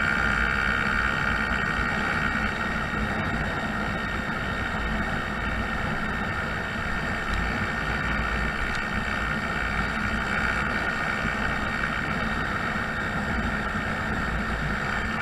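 Honda Zoomer 50cc four-stroke scooter engine running steadily while riding, mixed with wind and road noise.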